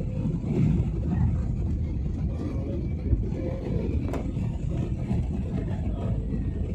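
Steady low rumble of a jet airliner heard from inside the passenger cabin, with a single sharp click about four seconds in.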